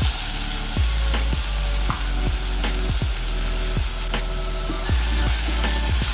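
Diced red onion and minced ginger sizzling steadily in hot oil, starting to be stirred with a silicone spatula near the end, under background music with a steady beat.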